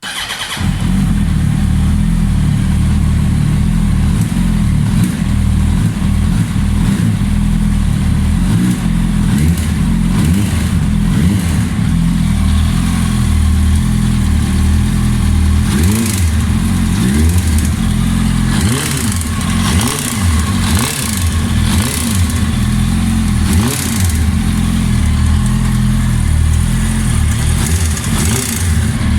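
2007 Yamaha YZF-R1 (RN19) inline-four engine running, with its pitch briefly rising and falling several times in the second half. The owner calls the engine sound bad, cause unknown.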